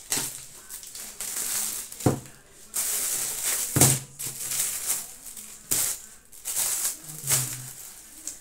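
Plastic shopping bags rustling and crinkling as groceries are rummaged out by hand, with about five sharp knocks of items being handled or set down.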